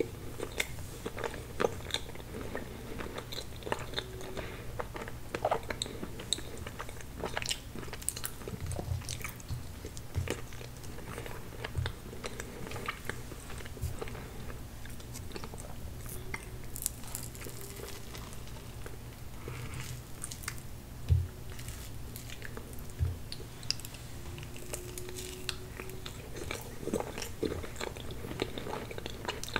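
Close-miked chewing and wet mouth clicks of someone eating soft tiramisu cake from a spoon, a steady run of small smacks and squishes. There is one louder knock about two-thirds through.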